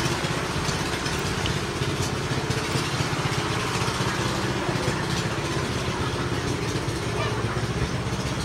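A small engine running steadily at idle: an even low hum with a fast pulse that does not change, over light background noise.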